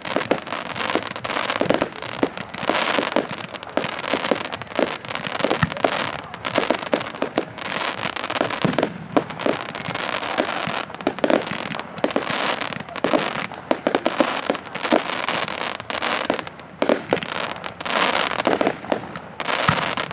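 Firework display: a dense, unbroken barrage of bangs mixed with continuous crackling.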